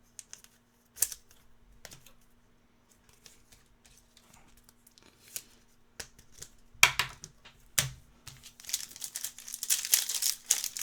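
Trading cards being handled and shuffled, with scattered sharp clicks and slides. Over the last couple of seconds a card pack wrapper crinkles and tears.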